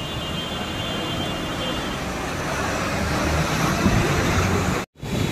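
Heavy rain pouring onto a city street, with traffic rumbling through the wet road beneath it. The sound is a steady wash that cuts out for an instant near the end.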